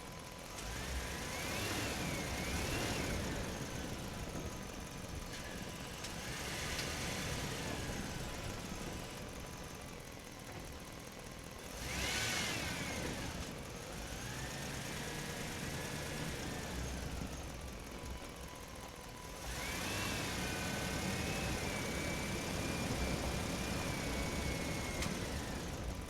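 A truck driving through a parking structure, its engine running steadily, with high-pitched squeals that rise and fall several times. The longest squeal comes near the end.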